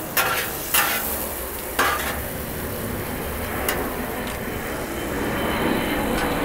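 Ground beef sizzling on a Blackstone flat-top griddle while metal spatulas chop and scrape through it, with several sharp spatula clanks on the steel griddle top, most of them in the first two seconds. A low plane rumble runs underneath.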